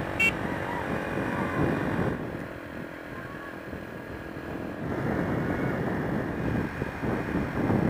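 Honda XR125's single-cylinder four-stroke engine running steadily while under way. The sound drops abruptly about two seconds in and comes back as abruptly about five seconds in.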